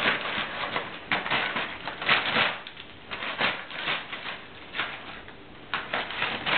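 Crumpled brown paper crinkling and rustling in irregular bursts as two cats wrestle and scrabble on it, with a sharp tick about a second in.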